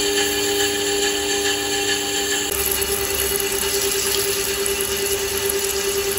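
CNC lathe cutting steel under flood coolant: a steady machine whine with a couple of held tones over a dense hiss of cutting and coolant. About two and a half seconds in, one of the tones drops out and the hiss changes.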